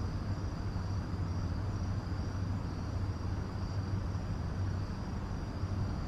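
Steady high-pitched chorus of insects, a continuous even buzz, over a low steady rumble.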